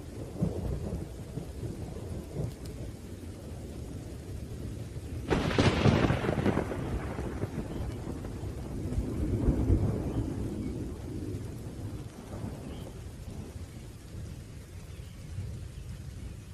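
Thunderstorm: steady rain with continuous low thunder rumble. About five seconds in a sharp thunderclap cracks and trails off into a long rumble, and a second swell of rumble comes a few seconds later.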